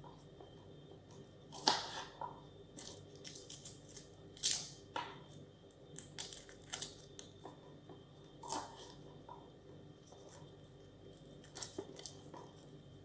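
Small kitchen knife peeling and trimming garlic cloves and cutting on a cutting board: scattered sharp clicks, taps and short scrapes, over a faint steady hum.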